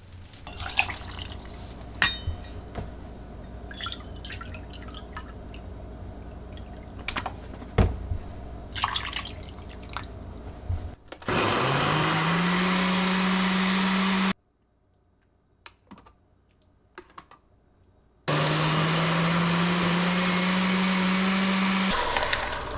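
Light kitchen clatter of small knocks and clicks, then an electric blender motor that spins up with a rising whine and runs steadily. It stops abruptly, and after a short near-silent gap it runs steadily again for a few seconds.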